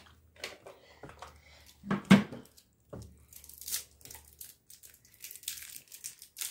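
Foil wrapper of a chocolate crinkling and tearing as it is unwrapped by hand, in short scattered rustles, with one louder thump about two seconds in.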